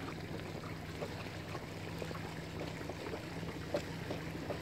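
Boat engine running with a steady low hum, under a haze of water lapping against the hull.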